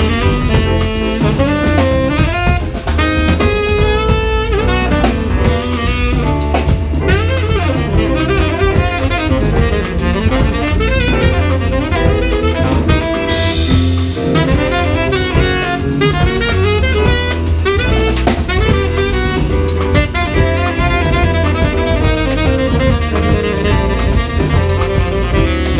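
Live jazz quartet playing: a tenor saxophone runs melodic lines over drum kit, bass and piano.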